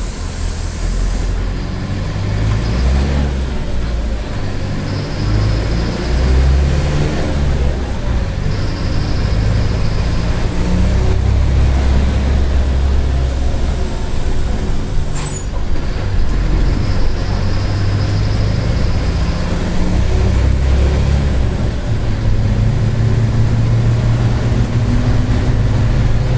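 Mercedes-Benz OF-1722M city bus on the move: the diesel engine running under load, its pitch shifting as the bus pulls and eases off, with the differential growling. About midway comes one sharp hiss of air from the air brakes.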